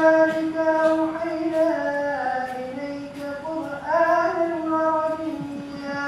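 Imam's voice chanting aloud in one long melodic line, leading the congregational Isha prayer; the phrase falls quieter around halfway, swells again about four seconds in, and ends near the end.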